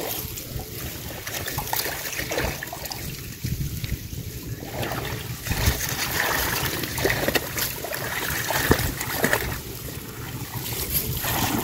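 Shallow canal water sloshing and trickling, with many small irregular splashes, as people wade and search the bank holes by hand for fish.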